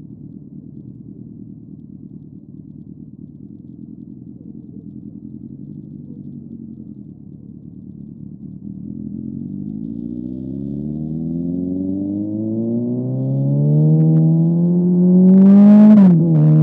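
Motorcycle engine: a low rumble at first, then rising steadily in pitch and loudness as it accelerates. Near the end the pitch drops sharply and settles at a steady note.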